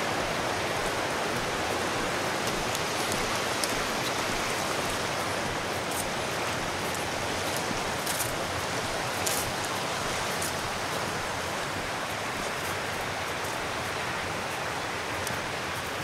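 Small river flowing: a steady rush of water, with a few faint ticks now and then.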